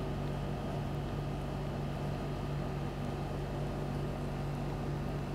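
Steady low hum over a soft, even hiss: constant background room noise with no events in it.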